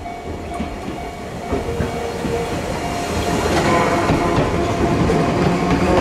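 Enoden electric train running through a level crossing, its wheels clacking on the rails and getting steadily louder as it nears, while the crossing bell keeps ringing.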